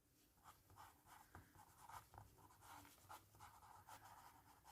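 Faint scratching of a pen writing, in short irregular strokes.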